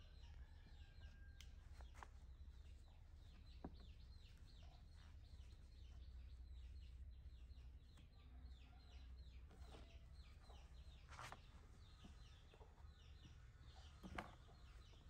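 Faint chirping of birds in the background: many short, falling chirps repeating several times a second, with a few soft clicks now and then.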